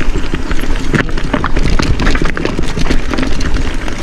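Mountain bike rattling over rocky trail: a dense, irregular run of knocks and clicks from the tyres, chain and frame striking rock and roots, over a low rumble.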